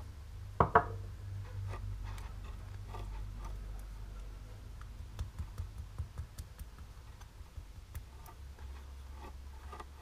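Glass nail-polish bottles and long fingernails being handled, giving clicks and taps, with two sharp knocks just under a second in and a run of quicker clicks a little past the middle, over a steady low hum.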